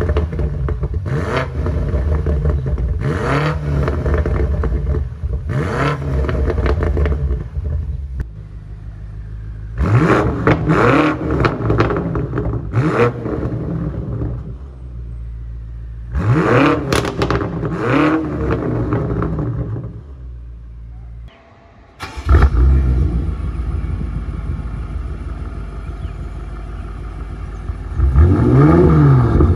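BMW M8 Competition Gran Coupe's twin-turbo V8 revved in repeated short blips while standing, first through the stock exhaust and then through an Akrapovič sports exhaust. After a brief gap it idles steadily in Efficient mode and is blipped again near the end.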